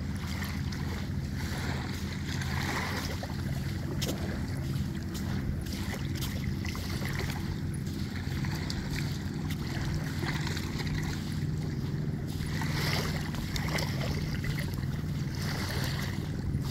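Small waves washing in on a sandy beach over a steady low rumble, swelling softly every second or two.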